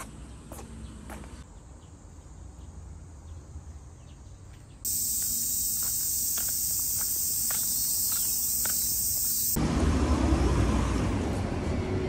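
A chorus of cicadas buzzing steadily and loudly at a high pitch. The buzz starts abruptly about five seconds in and cuts off just before ten seconds. Before it come a few footsteps on paving, and after it a louder, steady, low rumbling noise.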